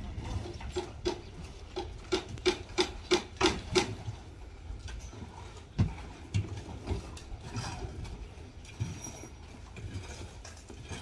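Hammer blows: about nine sharp strikes, roughly three a second, each with a brief ringing tone, stopping about four seconds in. Scattered knocks and scrapes of building work follow.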